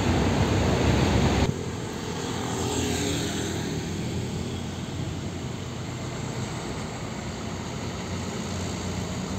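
Heavy diesel dump truck engines running as the trucks drive by. The sound is loud and dense until it cuts off abruptly about a second and a half in, then gives way to a quieter steady diesel hum with a brief rising whine around three seconds in.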